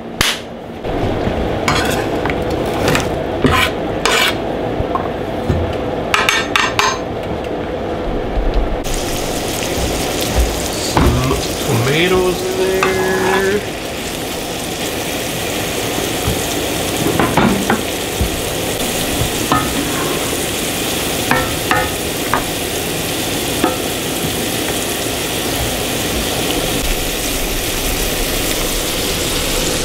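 Chopped onions frying in hot olive oil in a cast iron skillet. The sizzle starts suddenly about nine seconds in as the onions hit the oil and keeps going steadily. Before that there are a few knocks and clatters of utensils and pans.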